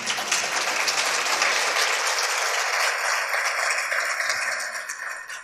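Audience applauding, steady and then fading away near the end.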